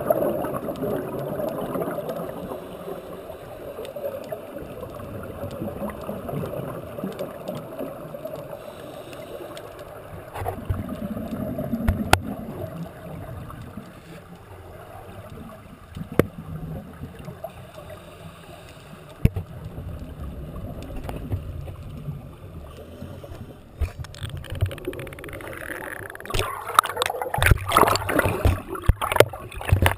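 Muffled underwater noise heard through a GoPro dive housing: steady bubbling and water rush from scuba divers' exhaled air, with a few sharp clicks. In the last few seconds it turns louder and busier, with rapid knocks and splashy noise as the camera is moved about.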